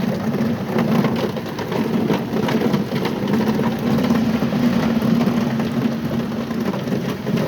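Heavy rain falling and splashing in a thunderstorm, a steady hiss with a low drone underneath.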